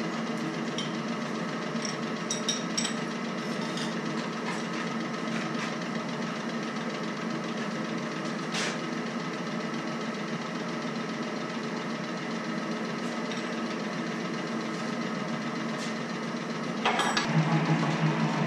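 A 100-year-old metal shaper running as it cuts steel, with a steady mechanical hum from its drive and now and then a sharp click. About a second and a half before the end the sound grows louder and a deeper hum comes in.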